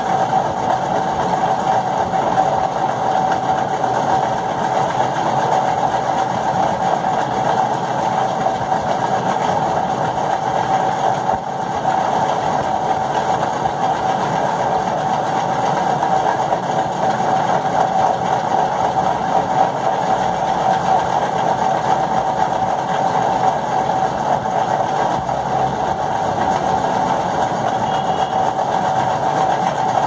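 Steady mechanical hum, like a running motor, with one constant mid-pitched tone that does not change.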